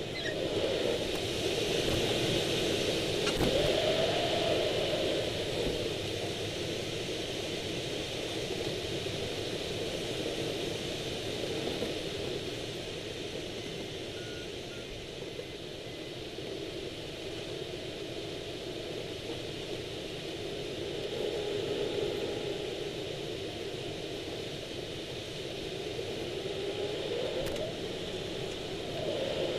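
Rushing airflow over an unpowered Swift rigid-wing glider's frame and fairing. The sound swells three times, and a hum within it glides up and then back down in pitch as speed builds and bleeds off through the wingovers.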